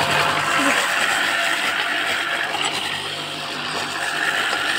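Homemade electric grass cutter, an electric motor mounted on a wooden deck, running steadily as it cuts through the lawn.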